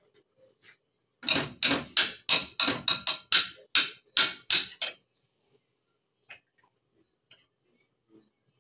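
A quick run of about a dozen sharp knocks on a hard surface, roughly three a second for about four seconds, followed by a few faint clicks.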